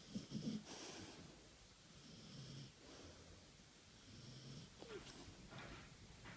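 A sleeping Labrador dog snoring, with wheezy, snorting breaths about every two seconds; the first is the loudest. Near the end comes a brief sucking smack of the mouth.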